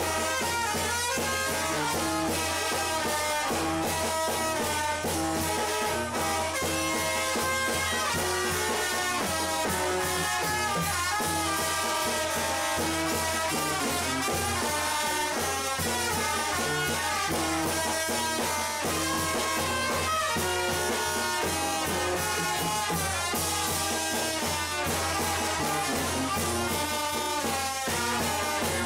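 Live brass band playing a steady, rhythmic tune: trombones, trumpets and saxophone over timbales and cymbal.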